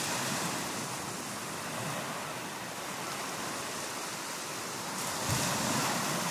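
Sea waves washing onto a shore: a steady rushing surf that swells louder about five seconds in.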